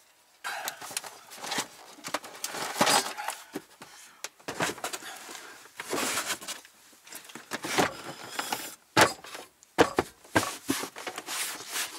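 Handling noise of gear being loaded into a car's cargo area, with a carpet-covered floor panel laid in place: irregular scrapes, rustles and knocks, with a couple of sharper knocks about three-quarters of the way through.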